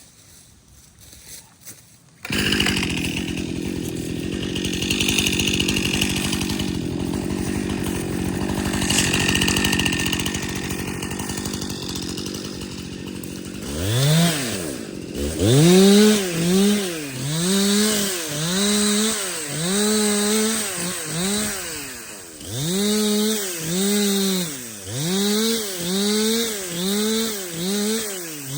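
Chainsaw coming in at full throttle about two seconds in and running steadily through wood for about ten seconds. From about halfway, it is revved up and let back down about once a second in a run of quick short cuts, trimming off branches.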